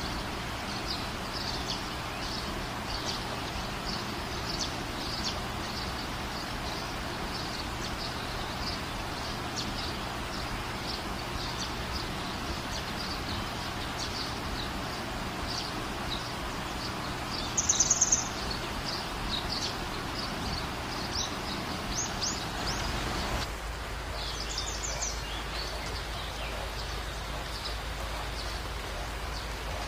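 Small birds chirping and tweeting again and again over a steady hiss of light rain, with a louder burst of rapid calls about 18 seconds in.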